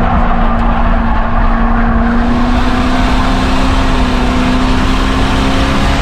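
Ford Crown Victoria race car's V8 engine running hard at steady high revs, its pitch creeping slowly upward, over a loud, even rush of road noise.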